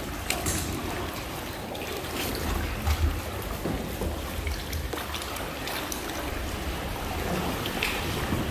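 Sea water splashing and lapping around a kayak, with wind rumbling on the microphone and a few faint knocks.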